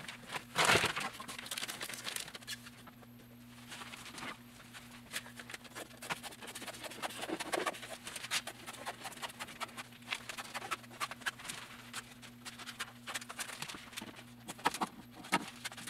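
Plastic vacuum-bagging film crinkling and rustling as it is handled and cut to size with scissors, in irregular crackles with a louder burst about a second in. A steady low hum runs underneath.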